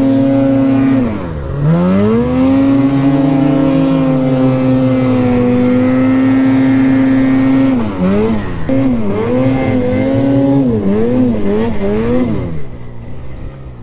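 Snowmobile engine held at high revs with the track spinning in deep powder as the rider tries to power out of being stuck. About a second in the revs drop and climb back; after about eight seconds the throttle is blipped up and down six or seven times in quick succession, and the engine falls to a low idle near the end.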